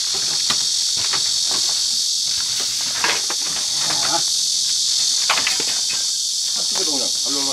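Insects buzzing in a steady, high-pitched chorus, with a few faint knocks and clatters from scrap being shifted.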